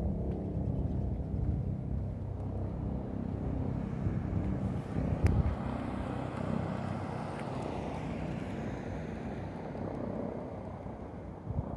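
Bell 429 GlobalRanger helicopter flying over at a distance, a steady low rotor and engine drone. A brief sharp knock sounds about five seconds in.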